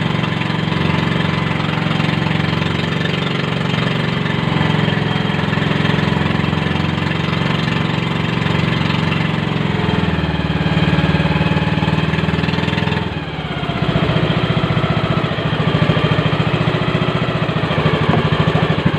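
A small boat engine running steadily. About two-thirds of the way through, its pitch slides down and it briefly quietens as it is throttled back, then it picks up again with a more pulsing beat.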